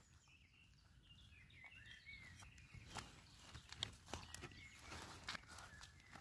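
Near silence: faint short bird chirps in the first few seconds and scattered light ticks and rustles in the leaf litter.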